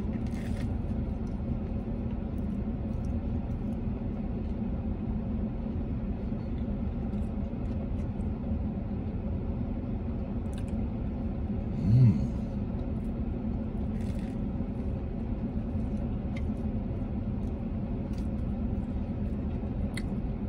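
Steady low rumble of a running vehicle, heard inside its cabin, with faint clicks of chewing. About twelve seconds in there is a short low "mm" from the eater's closed mouth.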